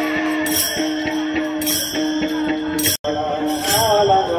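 Warkari bhajan music: small brass taal hand cymbals clashing in a steady rhythm of about one ringing stroke a second, over a barrel drum and a held note. There is a brief dropout about three seconds in, after which voices sing on with the cymbals.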